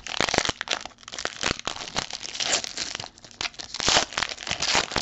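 Wrapper of a 2019 Luminance football trading-card pack being torn open and crinkled by hand: a dense run of crackling and small tears, louder about two and a half and four seconds in.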